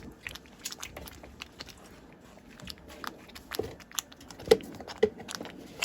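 Irregular clicks and light knocks from a pan of paneer gravy cooking on the stove, the sharpest about four and a half seconds in.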